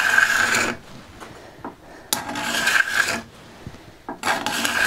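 Freshly sharpened steel card scraper pushed along a wooden board in repeated rasping strokes, lifting fine shavings. There are three strokes about two seconds apart: one ends just after the start, one comes at about two seconds, and one begins near the end.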